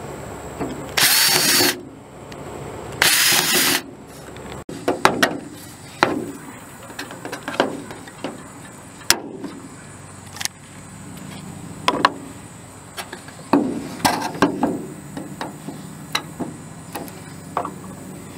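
Power drill running in two short bursts, about two seconds apart, as it bores through the metal flange of a downspout outlet into a sheet-metal gutter. After that, a string of separate sharp clicks and knocks.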